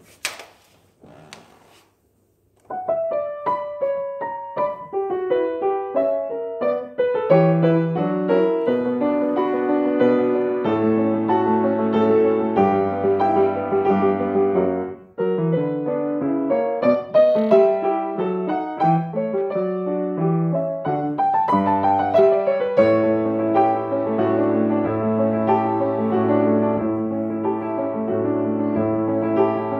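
Grand piano played solo: after a couple of quiet seconds, single notes begin about three seconds in and build into chords, with a brief break near the middle before the playing goes on.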